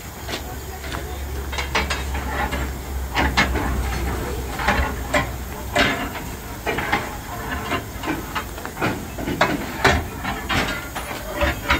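Steam locomotive 2685 hissing steam from beneath its cylinders, with irregular sharp knocks and clanks.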